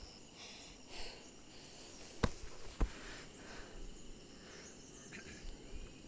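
Faint outdoor ambience with a thin, steady chirring of insects. Two sharp clicks come a little over half a second apart, about two seconds in.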